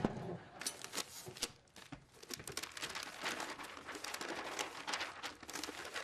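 Large sheets of paper rustling and crinkling as they are handled and folded on a table, a steady run of quick crackles.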